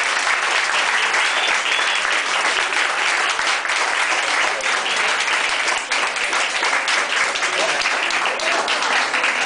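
Audience applauding steadily, with a few voices calling out among the clapping.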